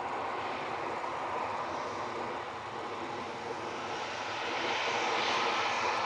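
Jet engine noise from a Boeing 737-900ER's CFM56-7B turbofans as the airliner rolls down the runway after landing: a steady rushing engine sound that grows louder and brighter about four and a half seconds in.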